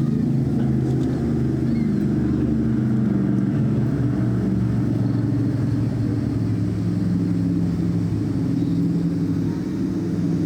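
Yamaha XV650 chopper's air-cooled V-twin engine running steadily under way, its note shifting slightly in pitch.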